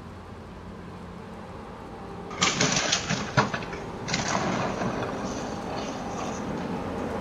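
Car cabin hum, then loud rough noise starting about two and a half seconds in, with two sharp knocks a second apart and a second stretch of noise from about four seconds in.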